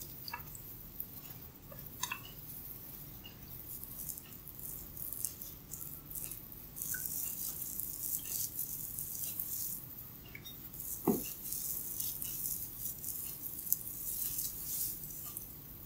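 Crisp, dense crackling and rustling of hair being rubbed and pulled between a masseur's fingers during a head massage, heavier in the second half. A single brief knock about eleven seconds in.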